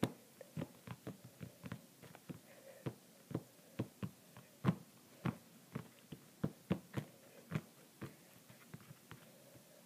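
A run of short, sharp taps, irregularly spaced at about two or three a second, with the loudest one about halfway through.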